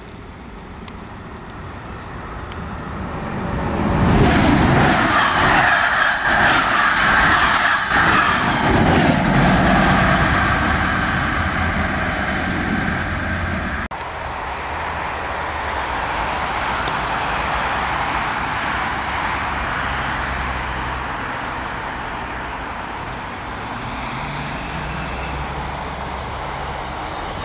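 A passenger train passing close by on the tracks, growing louder over the first few seconds, with a rhythmic clatter of wheels over the rail joints and a high steady whine. About halfway through the sound cuts abruptly to a steadier, lower rumble of a train running along the line.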